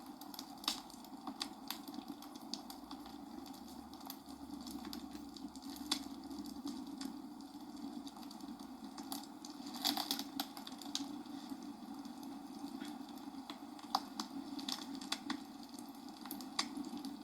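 Sporadic small sharp clicks and crackles, a few louder ones around 6, 10 and 14 seconds in, over a steady low hum.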